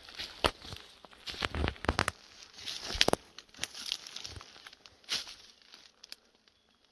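Footsteps crunching through dry eucalyptus leaf litter, loose bark and sticks, with irregular crackles and snaps of twigs underfoot that thin out near the end.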